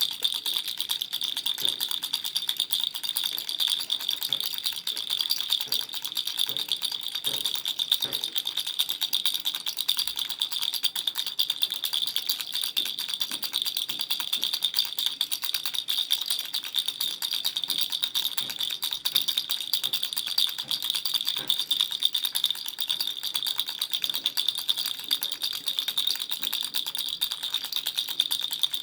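Baby rattle shaken without a break: a dense, even rattling.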